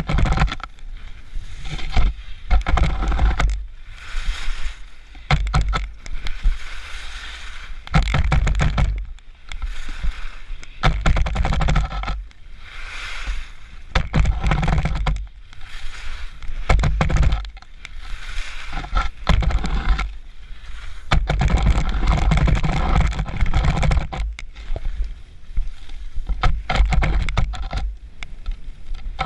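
Skis carving turns on packed snow, the edges hissing and scraping in a surge with every turn, about one every second or two. Wind buffets the microphone throughout.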